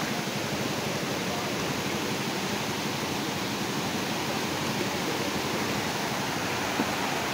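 Steady rush of a swollen, muddy river running high after a flood.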